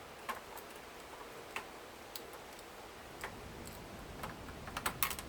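Light, irregular clicks and taps of electric typewriter parts being handled during a teardown, with a quick cluster of clicks near the end.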